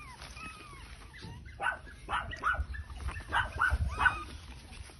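Chihuahua yapping: a quick run of short, high yaps starting about a second and a half in.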